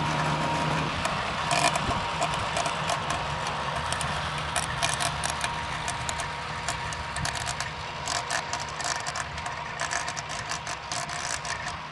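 John Deere 5100R tractor's diesel engine running while its PTO-driven rotary tiller works the soil, fading as it moves away. Frequent irregular sharp clicks and rattles run through it.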